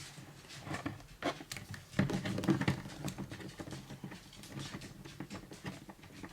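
Plastic Mego action figures being handled and held against each other: scattered light clicks and taps, with a louder stretch of rubbing and rustling about two seconds in.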